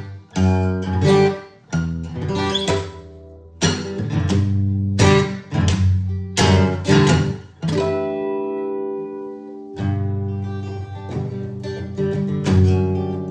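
Acoustic guitar strumming chords in an instrumental passage. About eight seconds in, one chord is left ringing for around two seconds, then the strumming resumes.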